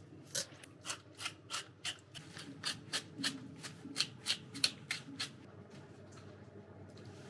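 Kitchen scissors cutting up raw cod heads: a quick run of about fifteen sharp snips, roughly three a second, that stops after about five seconds.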